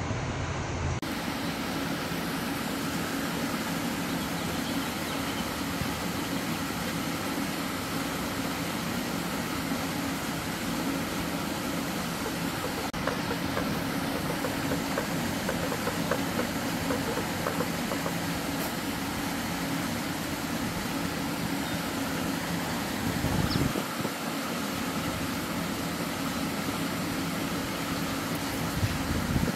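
Steady low mechanical hum over a rumbling background noise, with a brief low swell near the end.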